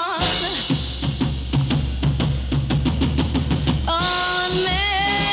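A big-band drum break on a drum kit: a rapid, even run of snare hits over bass drum for about three and a half seconds, after the last sung word dies away. About four seconds in, a long held note with vibrato comes back in over the band.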